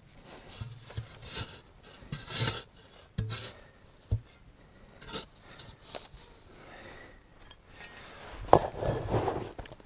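Shovel blade scraping and chopping into packed earth in a run of uneven strokes, with one sharp knock about four seconds in and the loudest, longest scrape near the end.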